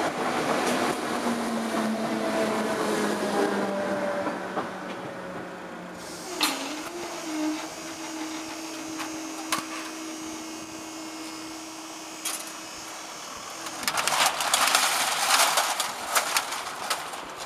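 8300 class DART electric multiple unit running off into the tunnel, its train noise fading over the first few seconds. A steady electric motor hum follows as the level-crossing barriers lift, then a louder stretch of rushing and clicking noise near the end.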